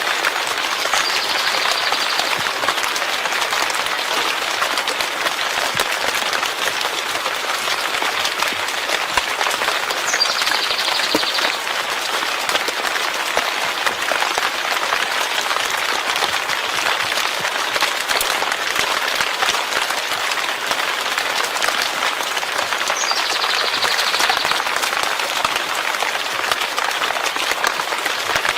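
Steady rain falling, a dense even hiss of many drops. A brief high-pitched sound cuts through three times: about a second in, near ten seconds, and near twenty-three seconds.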